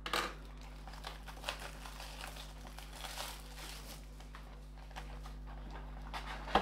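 Faint crinkling and rustling of a trading-card retail box's plastic wrap and cardboard as it is opened by hand, with a louder crackle at the start and another near the end.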